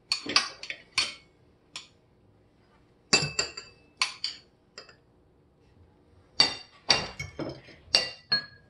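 Metal spoon and fork clinking against ceramic bowls and plates, as blueberries and banana slices are scooped out: short groups of sharp clinks, each with a brief ring.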